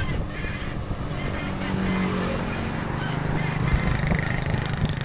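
Motorcycle engines running as they pass along the road, a steady engine hum that shifts in pitch as each goes by.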